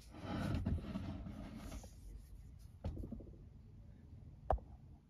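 Handling noise from a handheld camera being moved back from the stone: rustling and rubbing for about two seconds, then two light knocks, the second louder, near the end.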